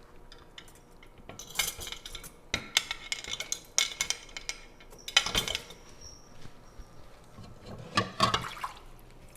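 Plates being set into the rack of a compact countertop dishwasher: several spells of dishes clattering and scraping against the rack, the loudest about five seconds in, with a brief faint ring soon after.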